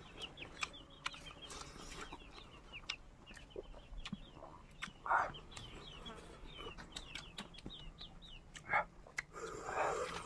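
Birds chirping: many short, high calls in quick succession, with a couple of louder calls and scattered clicks.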